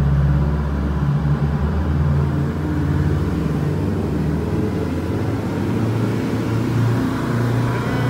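Engine of a motor launch running steadily underway, a low drone whose pitch shifts slightly partway through.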